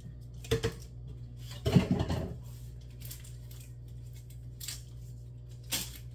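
Plastic drink-mix canisters being handled and emptied into a large aluminium stockpot: a few short knocks and rustles, the loudest about two seconds in, over a steady low hum.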